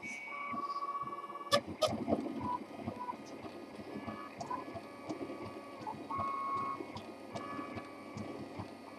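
RepRap 3D printer's stepper motors running as it prints, giving short held whining tones and a quick patter of ticks as the print head moves. Two sharp clicks come about a second and a half in.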